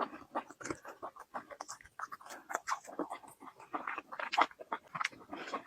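Close-miked eating of a large chicken drumstick: chewing and biting, a rapid, irregular run of wet clicks and smacks.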